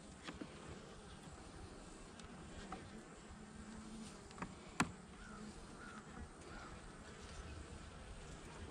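Honeybees humming faintly from an open nuc box, with a few sharp clicks of wooden frames being handled. The loudest click comes about five seconds in.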